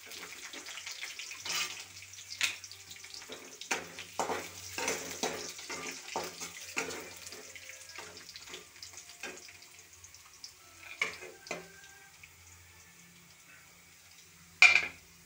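Spatula scraping and knocking against a metal wok as diced pieces and peanuts are stir-fried, over a steady frying sizzle. The strokes come thick and fast at first, then thin out, and one loud sharp knock comes near the end.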